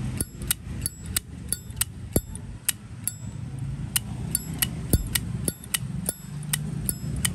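A Zippo windproof lighter's hinged lid being flicked open and snapped shut over and over, giving a series of sharp metallic clicks at roughly three a second. This is the lighter's 'good sound' (âm hay), from a lid and cam action that has been adjusted.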